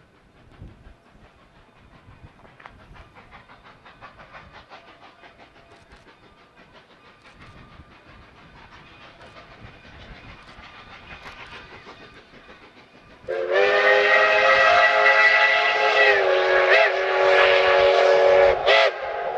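Narrow-gauge K-36 2-8-2 steam locomotive No. 484 approaching, its rhythmic working clatter growing slowly louder. About two-thirds in, its steam whistle sounds loud and long, a chord of several notes that sags briefly in pitch a couple of times and breaks for a moment near the end.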